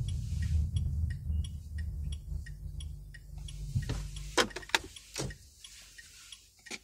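Inside a Smart ForTwo 453's cabin: a low running rumble with regular ticking. After about four seconds the rumble dies away, and a few sharp clicks follow.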